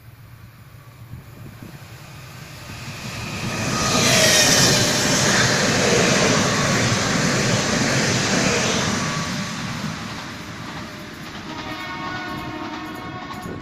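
Stadler FLIRT electric multiple unit passing at speed. Its rushing noise builds as it approaches, is loudest for several seconds as it passes, then fades as it pulls away.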